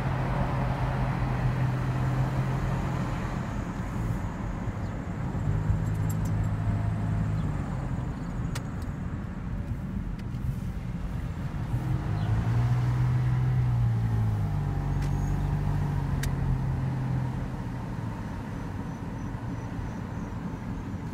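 A car's engine and road noise heard from inside the cabin while driving. The engine hum rises and falls in pitch several times as the car speeds up and slows, and there are two sharp clicks, one just before the middle and one later on.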